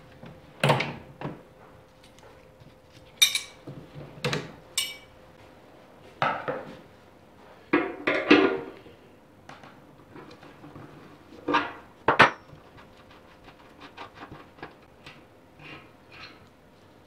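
A spanner and a brass fuel tap clinking and knocking against a steel motorcycle fuel tank as the tap is worked loose. The clinks and knocks come irregularly, a few of them sharp, high metallic clinks.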